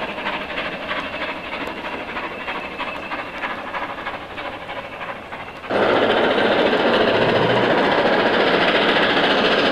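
A steam-hauled passenger train heard from on board: a steady hiss of steam with the clatter of wheels on the track. About six seconds in the sound cuts abruptly to a louder, denser noise from a steam locomotive working hard as it approaches.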